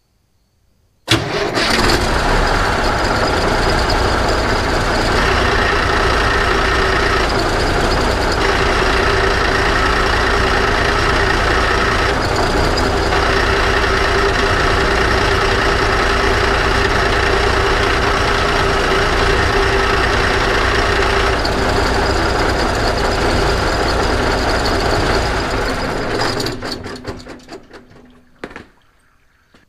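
1987 International Paystar dump truck's engine starting about a second in and running steadily for some 25 seconds, then shut off and winding down near the end.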